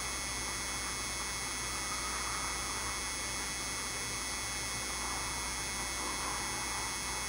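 Steady electrical hum with an even hiss and several thin high-pitched whines, unchanging throughout.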